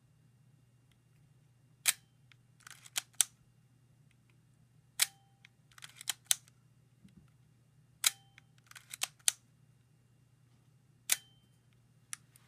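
Leica M3's mechanical cloth focal-plane shutter fired four times, about three seconds apart. Each release is a sharp click with a brief ringing tone after it, followed by a short run of softer scratchy clicks and a final click. This is the shutter sound that its owner finds strange and cannot explain.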